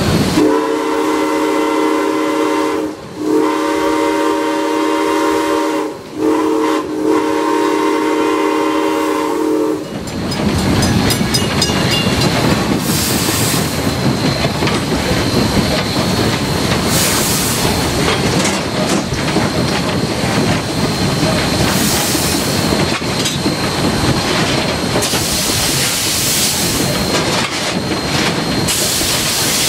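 Steam locomotive's whistle blowing a chord in the grade-crossing pattern, long, long, short, long, for about ten seconds. Then the 2-8-2 Mikado runs on with steady wheel-on-rail clatter and rumble.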